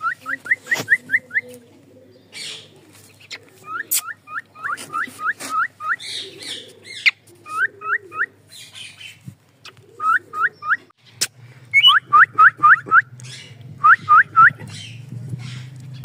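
Grey cockatiel chirping: quick runs of three to six short rising notes, repeated many times, with a few rougher calls in between.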